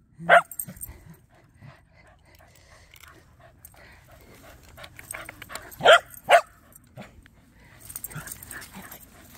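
Dog barking: one sharp bark just after the start, then two more in quick succession about six seconds in.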